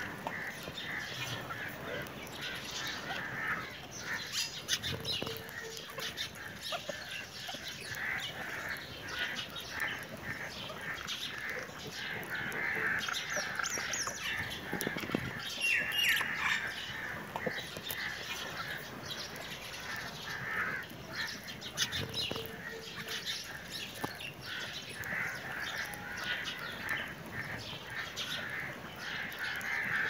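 Budgerigars chattering and warbling without a break: a dense stream of short chirps and squeaks.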